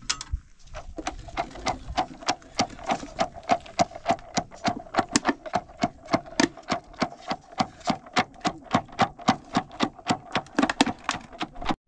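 A wooden stick plunged up and down in a plastic soda bottle of curd and water, churning it into buttermilk (doogh): a steady run of knocks, about four strokes a second.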